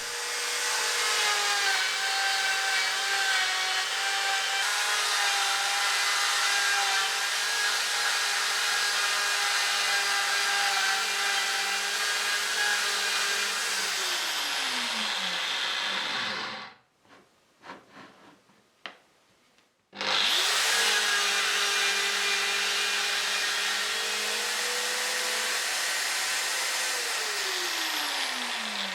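AdvancedCut saw with a NanoBlade chain blade cutting a shallow groove in a wooden board, pulled backwards. It runs steadily, winds down about 14 seconds in, stops for about three seconds with a few light clicks, then starts again and winds down near the end.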